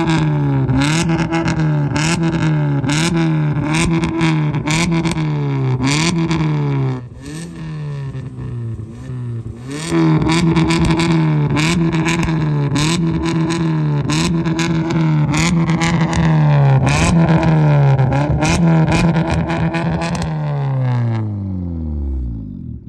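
Maruti Suzuki Swift LXi's 1.2-litre four-cylinder petrol engine revved in repeated short blips through an aftermarket valvetronic exhaust with its valve open. The note rises and falls about once a second, with a quieter lull partway through. Near the end the revs drop away.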